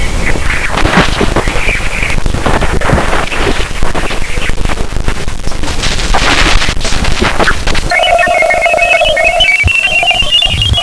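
Planetary 'space sound' audio, spacecraft radio data turned into sound: a dense crackling, surging static for about eight seconds, then a switch to rapid strings of electronic beeping tones at several pitches, the highest slowly rising.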